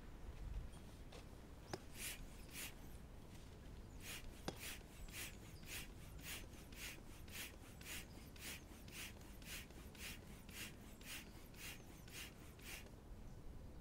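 Hand pump inflating an inflatable stand-up paddleboard: a quick, regular puff of hissing air with each pump stroke, several a second. It pauses briefly about three seconds in and stops just before the end, with a couple of faint clicks.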